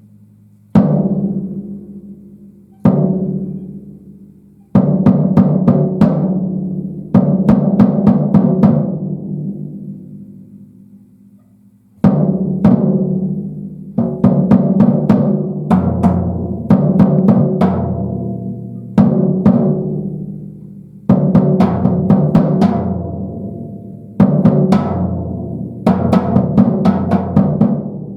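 TAMA Silverstar Metro-JAM compact birch drum kit, with its 16-inch bass drum and 10- and 13-inch toms, played solo. A few single hits are left to ring out, then come quick runs of strokes, and the drums ring on for a long time after each.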